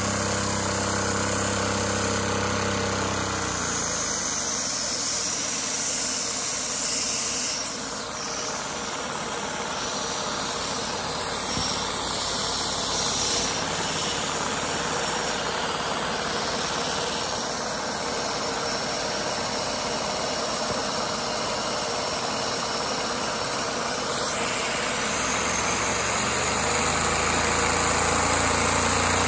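LEGO V-twin vacuum engine running on a vacuum cleaner's suction: a steady mechanical whirring noise. A low hum fades about four seconds in and comes back near the end.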